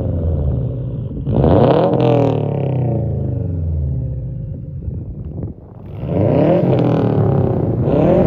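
Subaru WRX STI's turbocharged flat-four revving through an aftermarket exhaust. It revs up sharply about a second in and falls away slowly, then revs up again twice near the end.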